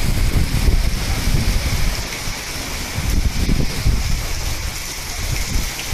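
Heavy rain pouring down steadily, with a low, uneven rumble of wind gusting on the microphone.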